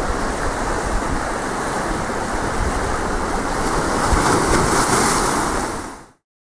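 Sea waves breaking and washing over shoreline rocks, with wind buffeting the microphone. A wave breaks a little louder about four seconds in, and the sound cuts off suddenly near the end.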